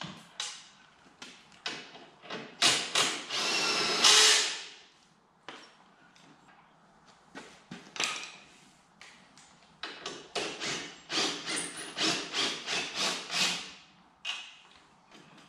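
Tools at work on bolts on an ATV's rear suspension: scattered sharp metal clicks and knocks, a power tool running in one burst of about a second and a half around three seconds in, and a quick run of sharp knocks near the end.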